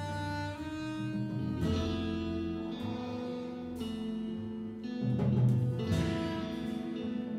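Small jazz group playing live: electric guitar notes over double bass and drums, with several cymbal strikes.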